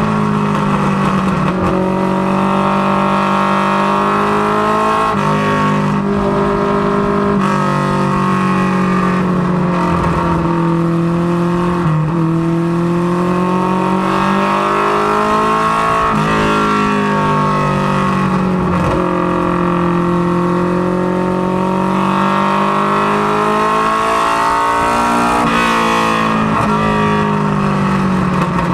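Ministock race car engine running hard on practice laps, heard from inside the stripped cabin. Its pitch keeps climbing and falling, with sudden drops every few seconds as the driver lifts and gets back on the throttle around the track.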